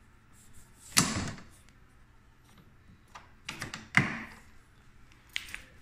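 Two sharp clunks about three seconds apart, with a few lighter clicks between, as the lawn mower's handle and its plastic clamp knob are handled and set in place.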